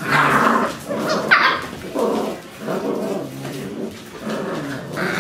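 Entlebucher Mountain Dog puppies growling and yapping as they wrestle in play, in repeated short bursts, with one sharp high yelp about a second in.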